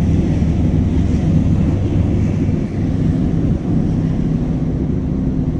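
A passenger boat's engine running with a steady low drone, heard from on deck, with wind buffeting the microphone.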